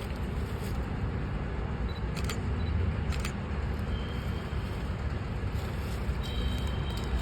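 Steady low rumble of a diesel locomotive engine running, with a couple of faint clicks about two and three seconds in.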